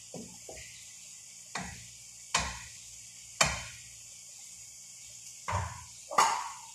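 Wooden spatula knocking against a frying pan and bowl while minced chicken filling is stirred: about half a dozen separate clacks, spaced unevenly, the loudest about three and a half seconds in.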